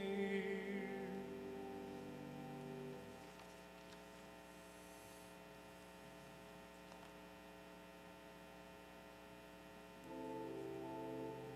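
A hymn's last sung note, held with vibrato, ends about a second in, and the accompaniment's held chord dies away about three seconds in. Then comes a steady low electrical hum, until new held chords begin near the end as the introduction to the next hymn.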